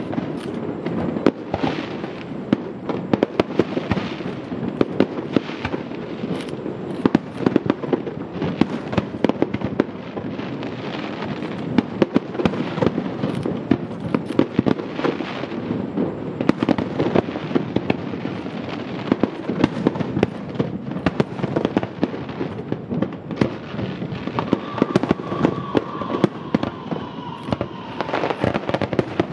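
Aerial fireworks bursting in quick succession: a continuous barrage of sharp bangs and crackling over a steady rumble. Near the end a faint held whistling tone sounds for a few seconds, sliding slightly lower.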